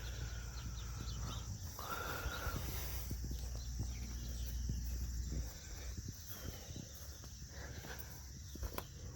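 Crickets and other insects chirping steadily outdoors, with a low rumble that stops about five and a half seconds in.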